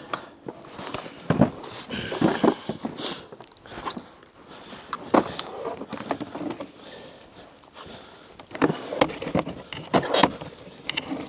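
Irregular knocks and clunks of boards and tools being handled and set down, with footsteps in between.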